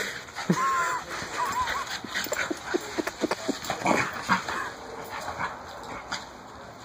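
Two dogs play-fighting, giving high-pitched whining cries about half a second in, then a run of short yips and grunts. The noise dies down over the last two seconds.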